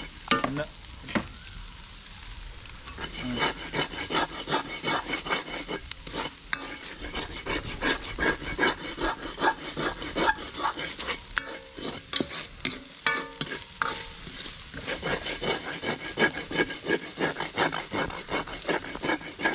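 Long-handled ladle scraping and clattering against a large metal wok as fried rice is stirred over a wood fire, with a light sizzle underneath. The strokes come a few times a second, easing off briefly in the first few seconds.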